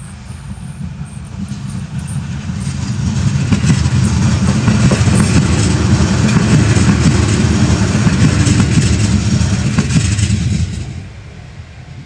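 A 205 series electric commuter train passing over a level crossing close by, wheels rumbling with a rapid clatter of clicks over the rail joints. It grows louder over the first few seconds and then drops away quickly near the end as the last car clears the crossing.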